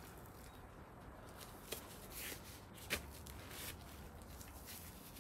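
Thin disposable gloves being peeled off the hands: faint crinkling with a few short sharp crackles, the sharpest about three seconds in.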